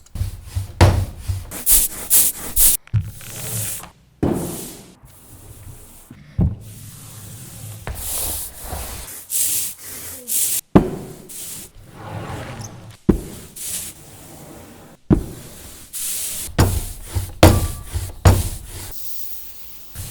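A fast edited collage of printmaking workshop sounds: sharp knocks and smacks alternating with short scraping and rubbing strokes, each snippet cut off abruptly into the next.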